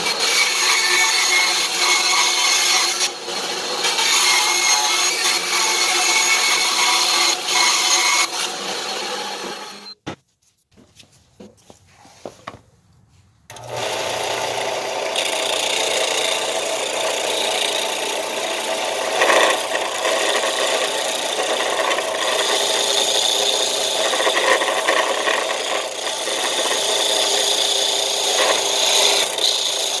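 A band saw cutting through a glued-up pallet-wood blank for about ten seconds, then stopping. After a short lull with a few small knocks, a benchtop belt/disc sander runs while a round pallet-wood wheel is pressed against its sanding disc.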